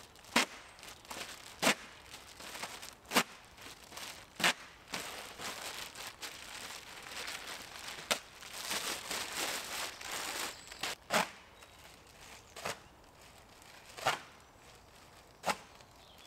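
Bubble wrap being handled and torn off a tent frame: crinkling and tearing plastic, with sharp clicks about every second and a half and a longer stretch of crackling in the middle.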